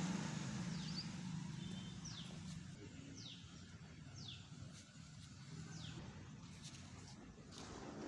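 A bird repeating a short, high call that falls in pitch, about five times, over faint low background noise.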